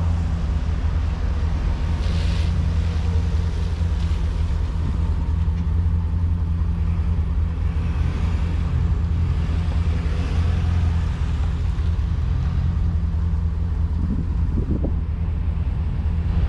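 Ford Super Duty pickup's engine and road noise while driving, a steady low drone. The exhaust now has a muffler in place of its former straight pipe. A brief hiss comes about two seconds in.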